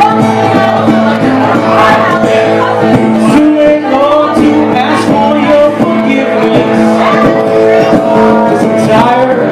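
Live acoustic duo: acoustic guitar played under a singing voice, with held notes and sliding vocal lines.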